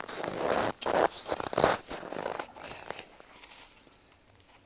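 Packed snow crunching and scraping, with the rustle of a winter jacket, as hands work snow around an ice-fishing hole to set a tip-up. The scrapes come irregularly and are loudest in the first two and a half seconds, then die down.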